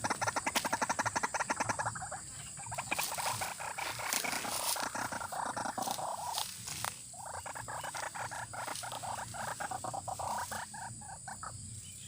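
White-breasted waterhen calling: a fast, rattling croak repeated in long runs, with a short break near the middle.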